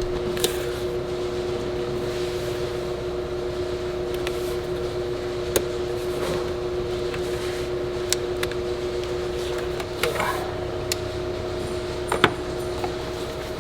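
A steady mechanical hum of a few constant pitches, like a fan or other running shop equipment, with a few sharp clicks and taps of parts being handled in the truck's engine bay.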